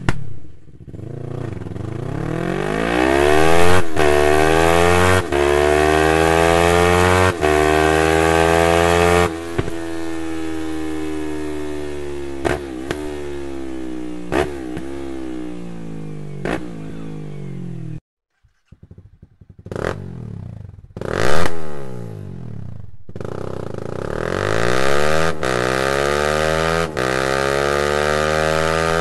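Small sport motorcycle with an Akrapovic race-line full exhaust accelerating hard, the pitch climbing and dropping back at each of four upshifts. It then rolls off and downshifts, with a short blip at each shift. After a sudden cut and a moment of near silence, a second bike gives two sharp revs, then pulls away with the pitch climbing again.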